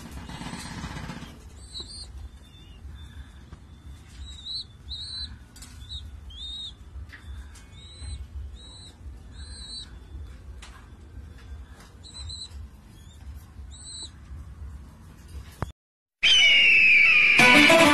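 Young satin pigeons (squabs) squeaking: repeated short, high-pitched peeps, each rising and then falling, at irregular intervals over a low rumble. Near the end the sound cuts out briefly and background music begins.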